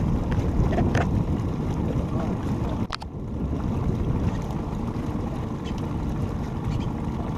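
Steady low rumble of wind buffeting the microphone on an open boat, with a single sharp click about three seconds in.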